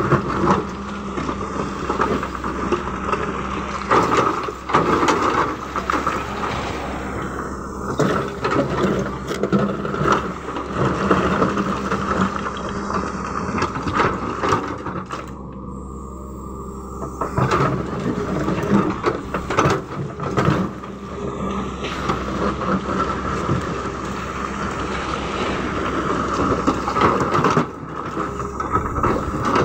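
Caterpillar hydraulic excavator's diesel engine running steadily under load, with stones clattering and scraping against its steel bucket again and again as it digs through and sorts rock. The engine eases off for a short, quieter spell about halfway through.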